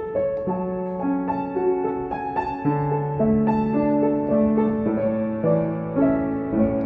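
Upright piano played slowly and softly: a chord struck at the start, then a melody of single notes, about two a second, over held bass notes.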